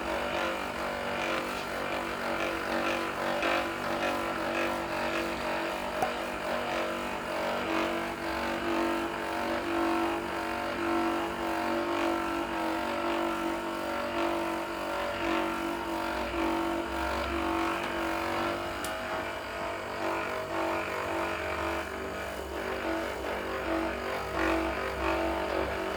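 Electric massage device running steadily with a motor hum, applied to the patient at a strength she has just been asked about; the lowest part of the hum swells at times, as if pressed in harder.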